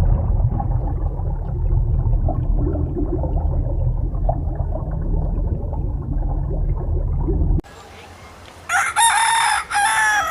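A rooster crowing near the end, a loud cock-a-doodle-doo in two parts. Before it comes several seconds of low rumbling background noise with faint scattered sounds, which stops suddenly.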